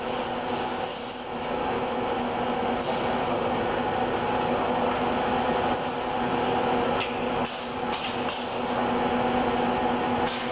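Steady machine hum with several steady tones, from the Motoman SDA10 dual-arm assembly robot working. A few light clicks come about seven to eight seconds in.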